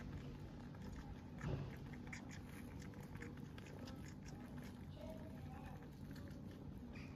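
Mother cat purring steadily while her kittens nurse, with many small clicks and taps from the kittens suckling and shuffling against her. A brief soft thump comes about a second and a half in.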